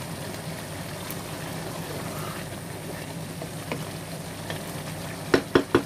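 Rice and peas pulao bubbling at a steady boil in a pot as the water cooks down and steam holes form in the rice, with a wooden spoon stirring. Near the end, four sharp knocks, likely the spoon against the pot.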